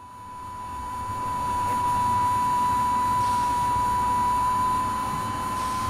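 Jet airliner sound effect: a steady high whine over a low engine rumble, fading in over the first two seconds and then holding level.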